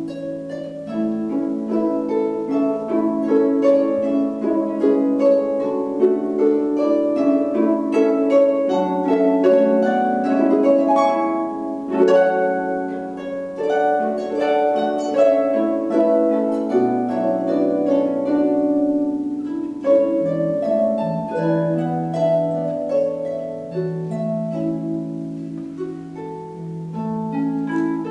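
Two harps playing a duet: a steady flow of plucked notes and ringing chords, with deeper bass notes coming in about two-thirds of the way through.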